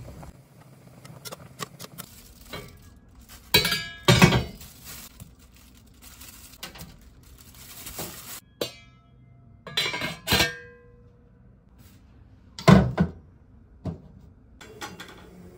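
Cookware clanking on a stove: a stainless steel pot and a frying pan knocked and handled, giving about six sharp metallic clanks with brief ringing, in three pairs spread through.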